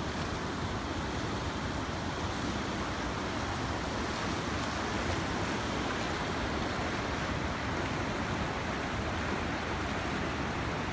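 The Chenab (Chandrabhaga) River rushing past: a steady, even noise of fast, choppy water running close by.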